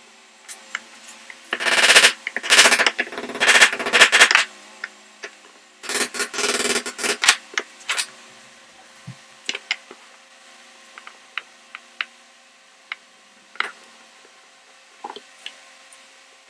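Bench handling noises while fitting wooden handle scales onto a cleaver's pinned tang and setting bar clamps: two stretches of dense scraping rattle in the first half, then scattered light clicks and knocks.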